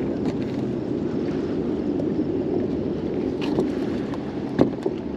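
Steady rumble of wind and water around an open boat, with a few sharp knocks, the loudest about four and a half seconds in.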